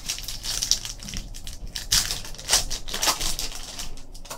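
Foil wrapper of a hockey card pack crinkling and rustling as it is torn open and handled, with the cards sliding out; a run of crackling rustles, loudest about two and three seconds in.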